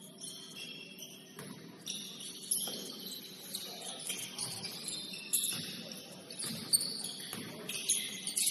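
Basketball shoes squeaking on a gym floor during play: many short, high squeals that shift in pitch, with scattered thuds.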